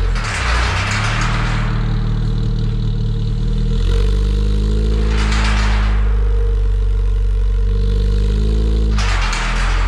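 2008 Suzuki Swift 1.5's four-cylinder engine running through an HKS mid and end pipe with an SLR manifold. The revs rise and fall several times, with a louder exhaust rasp on each blip.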